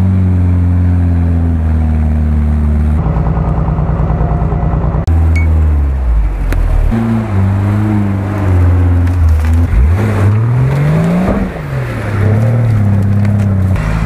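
Off-road 4x4 engines working through mud: a steady engine note, then a fast even throbbing, then, after an abrupt change about five seconds in, the engine revving up and down again and again.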